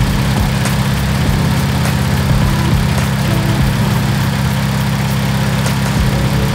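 Honda Civic Si's four-cylinder engine idling steadily at about 1,000 rpm, warm with coolant at 186 °F, after a fresh coolant bleed.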